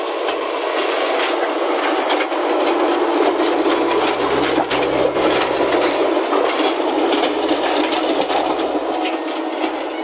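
Diesel engine of a JCB backhoe loader running close by as it works its front bucket through dirt, with scattered knocks and rattles from the machine.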